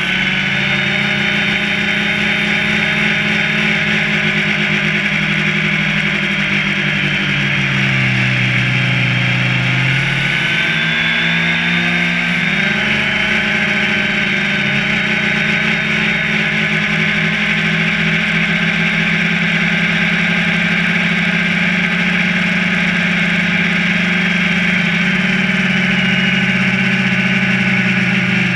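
Quadcopter drone's electric motors and propellers, heard through a camera mounted on the drone itself, giving a loud, steady buzzing whine. The pitch dips and climbs back about a third of the way through as the motor speeds change.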